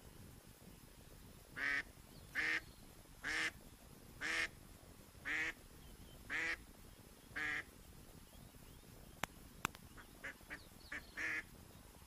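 Live decoy duck quacking: a series of seven loud, evenly spaced quacks about once a second, then a run of shorter, softer quacks near the end. It is the decoy's calling series meant to bring passing ducks down. Two faint sharp clicks come between.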